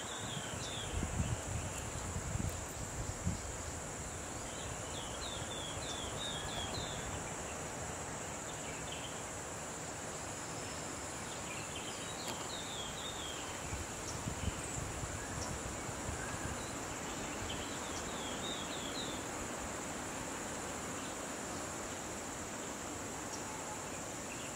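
Field ambience: a steady high insect drone, with a bird's short chattering calls repeating about every five or six seconds. A few low thumps fall in the first few seconds.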